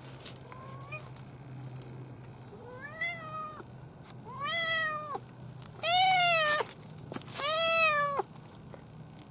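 Domestic cat meowing four times in a row about a second and a half apart, each meow rising then falling in pitch, the last two the loudest, after a faint short chirp near the start.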